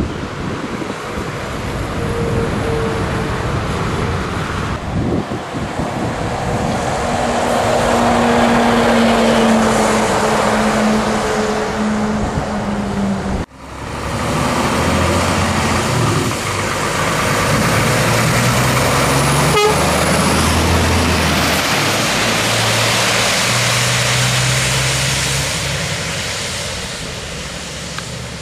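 Scania truck engines running on the road over tyre and road noise. The steady engine notes shift up and down in pitch, and the sound cuts off abruptly about halfway through, then picks up again.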